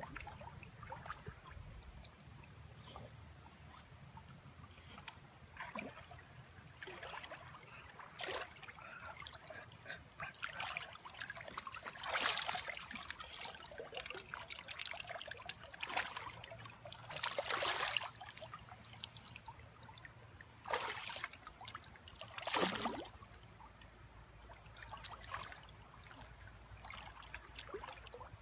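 Shallow creek water trickling, with several short splashes as a boxer dog and a man shift about while wading in it.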